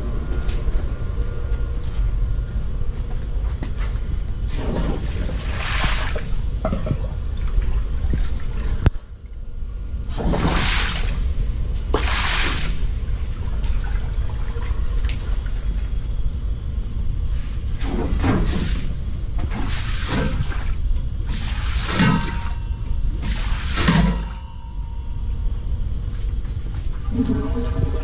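Steam boiler room: water running, with a steady low rumble underneath and about eight short rushing bursts a couple of seconds apart.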